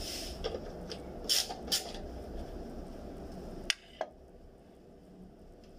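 A few light taps and clicks from a hand tool working at the oil-pan drain plug, over steady background noise. Two sharper clicks come near the end, after which it falls quieter.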